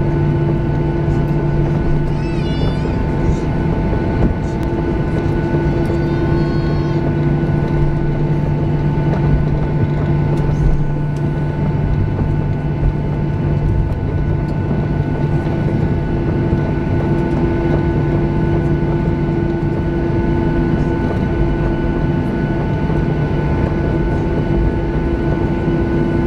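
Steady cabin noise inside a Boeing 737-800 taxiing at low power: the CFM56-7B engines and cabin air system make an even hum with several constant tones that hold the same pitch throughout.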